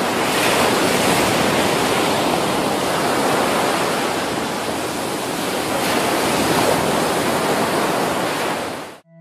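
A steady, even rushing noise like surf, with no distinct events, that cuts off suddenly near the end.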